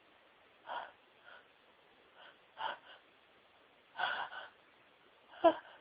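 A woman's sneeze build-up: about five short, breathy gasping inhalations that grow louder, the last one voiced and catching, as a sneeze comes on.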